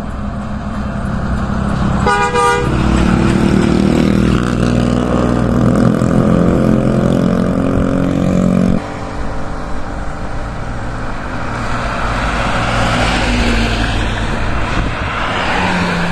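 Large diesel box truck passing close on the highway, sounding a short horn blast about two seconds in, then its engine droning loudly until it cuts off suddenly about nine seconds in. Road noise of further traffic approaching rises toward the end.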